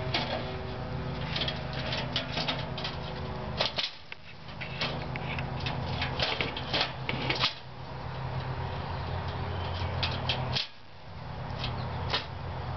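Chipmunk moving about inside a wire-mesh Havahart live trap, its claws and teeth clicking and scraping on the wire in irregular runs of clicks. A steady low mechanical hum runs underneath and drops out briefly twice.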